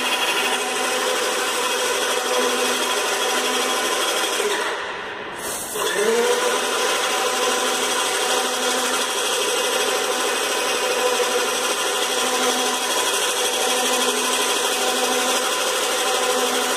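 Cetec SM10 airless paint sprayer's 750 W electric pump motor running steadily with a steady hum, with the spray gun hissing. About five seconds in it drops off for about a second, then winds back up with a rising whine.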